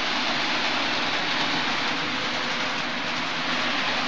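00 gauge model train running on the layout's track: a steady rushing noise with a low motor hum.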